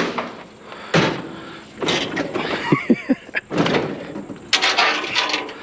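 Scrap items being shoved and slid into place on a trailer. There is a sharp clank at the start and another about a second in, then scraping with a few short squeaks, and a cluster of knocks near the end.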